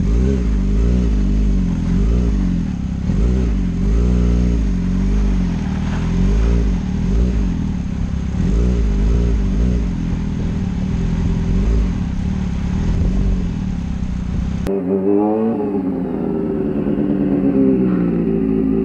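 Honda CBR600F4i inline-four stunt bike engine revving up and down under changing throttle as it is ridden, with wind hiss over the onboard microphone. About 15 seconds in the hiss stops and the engine is heard from the side of the lot, revs climbing as the bike pulls along at low speed.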